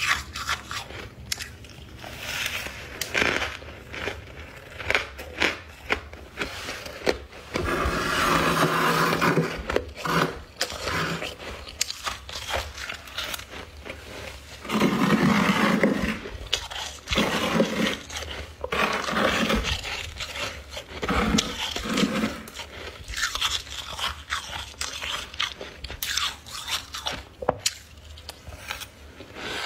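Ice and humidifier frost being bitten and chewed close to the microphone: a long run of sharp crunches and cracks, with a few longer gritty stretches of grinding.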